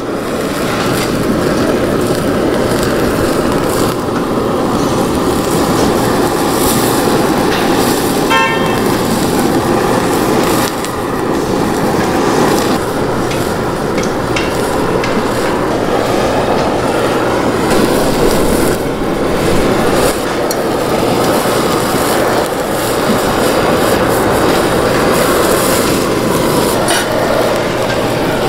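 Handheld gas blowtorch burning steadily as it sears pork belly on a steel griddle: a continuous, loud rushing flame noise.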